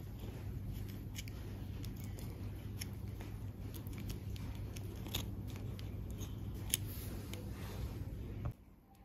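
Small sharp metallic clicks and taps, irregular and scattered, as tweezers work among the tiny gears inside a crab-claw mechanism. Under them runs a steady low hum that stops abruptly near the end.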